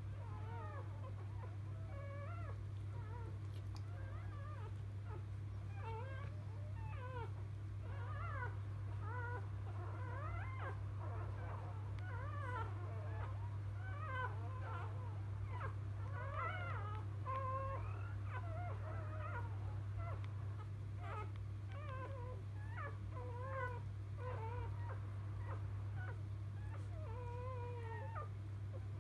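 Newborn Labrador Retriever puppies squeaking and whimpering in quick, high, wavering little cries, over and over, over a steady low hum.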